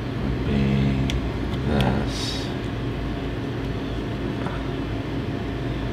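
A steady low mechanical rumble, like running machinery or an engine, with a short pitched hum in the first two seconds and a few faint clicks and a brief hiss.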